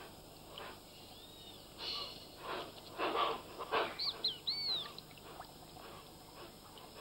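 Birds calling: a cluster of harsh, hissing calls about two to four seconds in, with thin arching whistled chirps about a second in and again, several of them, just after four seconds.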